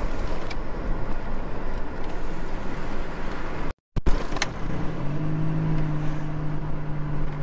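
Road and engine noise heard from inside a moving car. The sound cuts out for a moment near the middle, and a steady low hum joins it about five seconds in.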